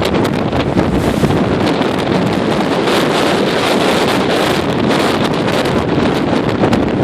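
Gale-force wind of at least 70 mph blasting across the microphone: a loud, steady rush of wind noise broken by quick crackling buffets.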